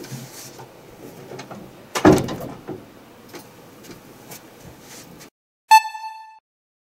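A room door shutting with a single thud about two seconds in, over quiet room noise. Near the end, after the sound drops out, one short electronic tone with overtones sounds and fades.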